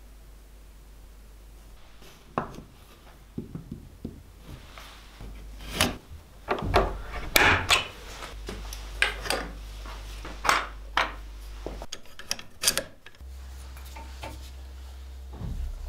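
Irregular sharp knocks and clatters of wood and tools on a wooden workbench while a wooden block is set up in it. Near the end comes the softer, steadier rasp of a hand brace boring into the wooden block.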